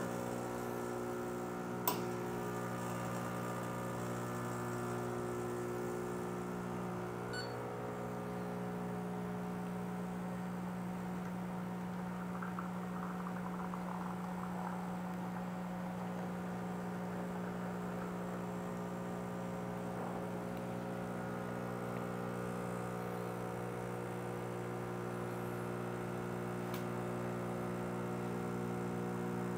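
Turin Capriccio espresso machine's pump running steadily through a shot pull: an even mains-pitched hum, with a click about two seconds in, that cuts off at the very end as the shot is stopped.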